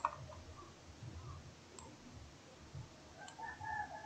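Computer mouse clicks: one sharp click at the start, then a few fainter ones spaced more than a second apart. A faint held tone comes in about three seconds in.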